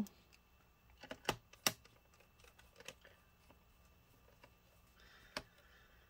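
A few faint, sharp clicks and taps, several close together in the first two seconds and one more near the end: a small screwdriver and screws being handled against a laptop's plastic bottom cover as the last screws are put back in.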